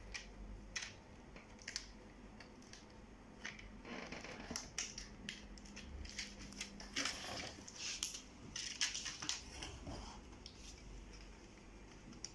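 Plastic display bezel of an HP ProBook 450 G6 laptop being pried off by hand: a run of irregular small clicks and crackles as its locking clips let go and the plastic flexes.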